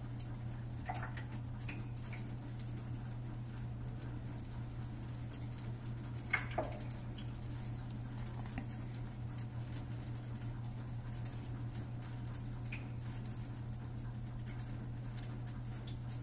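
Hobart commercial dishwasher running with a steady low hum, while water drips and patters with small scattered ticks. Two short downward-gliding sounds come about a second in and about six seconds in.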